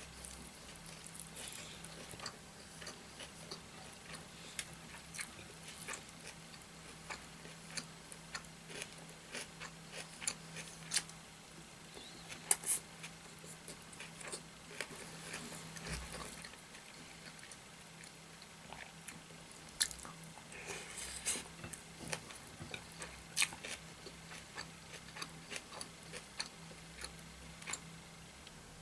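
Close-miked chewing of a curry-and-rice meal eaten by hand: wet mouth clicks and smacks scattered throughout, over a faint steady low hum.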